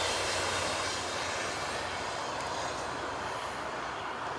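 MARC commuter train rolling on, a steady rumble of wheels on rails that slowly fades.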